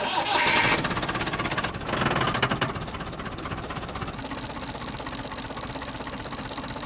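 Massey Ferguson 165 tractor engine running with a fast, even firing beat, a little louder in the first second and again around two seconds in. A steady high hiss joins about four seconds in.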